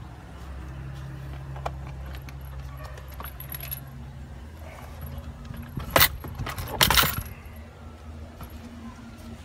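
Handling noise inside a van cabin: scattered clicks and rattles as a hand moves over the plastic centre console, with two loud rattling bursts about six and seven seconds in, over a low steady hum.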